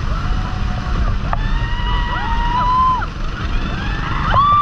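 Wind and spray rushing over an action camera on a speeding banana boat. Over the rush, riders let out several long shouts, the loudest near the end.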